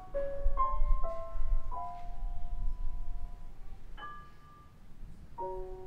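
Steinway concert grand piano playing a slow solo passage: a few notes and chords in the first two seconds, left to ring, a higher chord about four seconds in, and a fuller chord struck near the end and held. A low rumble sits underneath during the first few seconds.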